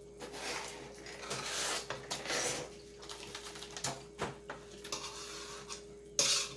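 Mouth noises of someone eating instant noodles face-down from a metal baking sheet with no hands: breathy slurping and sucking with a few small clicks, then a short louder scrape near the end as a fork touches the tray.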